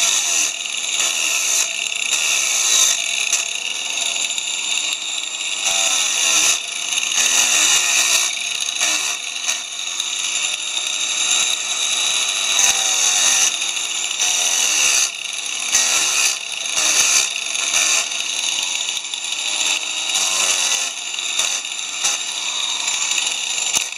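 Power tool spinning a coarse 40-grit sanding disc at reduced speed, grinding down the protruding part of a wooden handrail elbow joint. Its pitch sags and recovers again and again as the disc bites into the wood.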